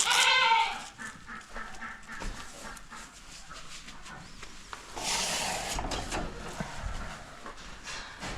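A goat bleats once, loud and wavering, at the start, followed by quieter scattered rustling and a brief hissing noise about five seconds in.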